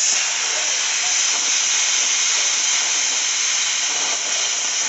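A loud, steady rushing hiss that cuts in suddenly and holds even.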